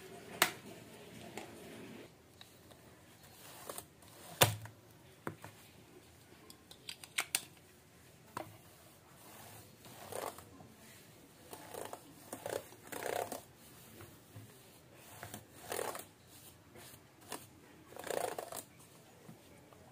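Small bristle cleaning brush scrubbing over a laptop keyboard: short scratchy swishes as it is worked back and forth across the keys, mostly in the second half, with a few sharp clicks and taps of keys before that.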